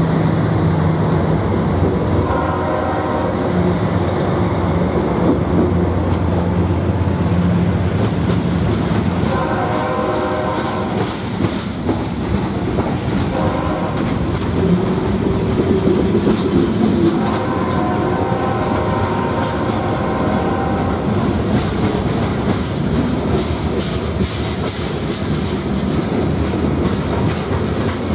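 BNSF freight train rolling past close by: the low drone of GE C44-9W diesel locomotives at first, then the steady rumble and clickety-clack of freight-car wheels on the rails. A train horn sounds four times up ahead, long, long, short, long, the signal for a grade crossing.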